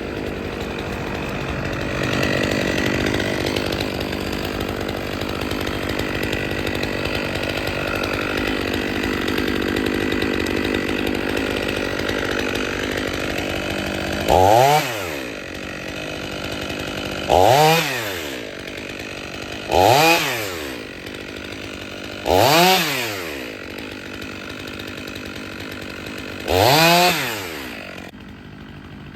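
Stihl MS 500i two-stroke chainsaw running steadily for about fourteen seconds, then revved up and let back down five times in quick succession before dropping to a lower idle near the end.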